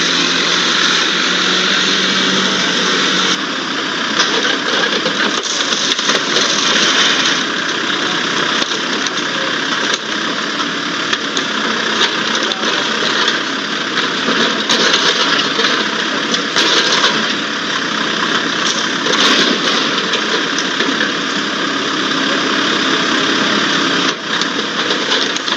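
Diesel engine of a Komatsu WB93R backhoe loader running steadily as its bucket presses down on a car roof, with a few faint knocks in the second half.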